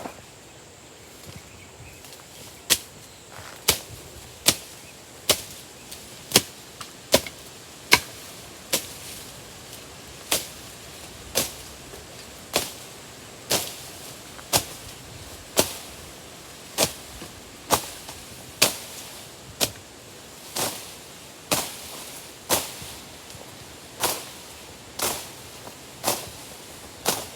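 A tool striking wood over and over, a sharp knock about once a second, starting nearly three seconds in and keeping an even pace.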